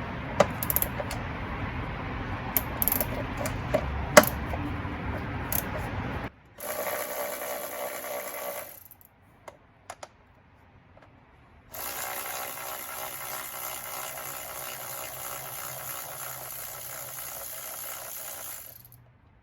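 Clicks and handling noise over a steady hiss, then a small cordless electric ratchet running on a 10 mm engine-cover bolt: a short burst of about two seconds, a pause, and a longer run of about seven seconds that stops near the end.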